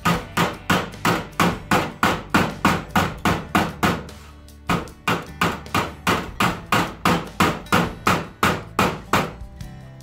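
Hammer striking a sheet-metal patch panel's edge against a hand-held dolly, rolling the edge over: quick, even metallic blows at about four a second, with a brief pause about four seconds in.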